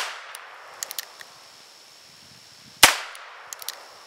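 Harrington & Richardson 622 .22 rimfire revolver fired single action: a shot at the very start dying away, and a second sharp shot just under three seconds in. Each shot is followed by a few small clicks as the hammer is cocked for the next.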